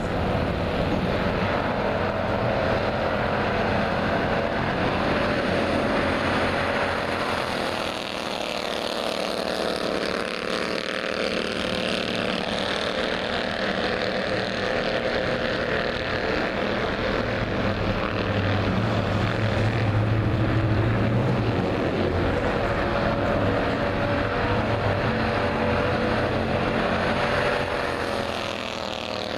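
Race car engines running on the speedway, one steady engine drone whose pitch drifts slowly up and down as the cars lap, with a deeper note swelling in the middle.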